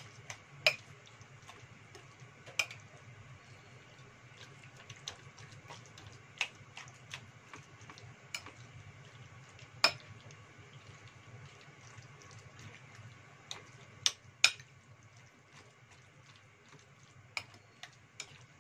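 A metal spoon mashing raw tofu in a ceramic bowl, with irregular sharp clinks and taps of the spoon against the bowl, the loudest about half a second, two and a half, ten and fourteen seconds in.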